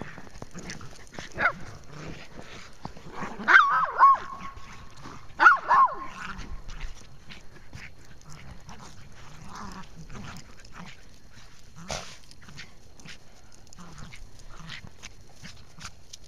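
Dogs barking and yipping in play: a single bark about a second and a half in, a cluster of yelping barks around four seconds, and two more near six seconds. After that only faint scattered scuffles and light knocks.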